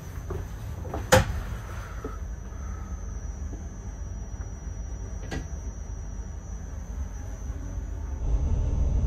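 Low rumble of an ICMm electric train running, heard in the driver's cab, with a faint high steady whine. A sharp click about a second in, another about five seconds in, and the rumble grows louder near the end.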